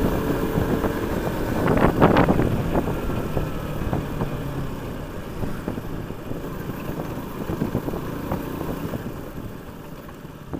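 Single-cylinder engine of a KTM RC sport bike running under way, with wind rushing over the rider's microphone. There is a louder burst of noise about two seconds in, and the sound grows quieter toward the end.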